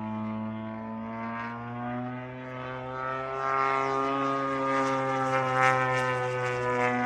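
Propeller airplane engine running steadily, its pitch gradually rising from about two seconds in and growing louder about a second later as the plane speeds up or comes closer. Wind gusts rush across the microphone in the second half.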